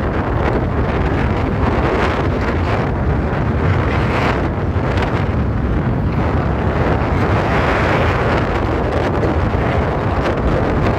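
Steady, loud wind buffeting the microphone of a rider going at full speed on an electric unicycle.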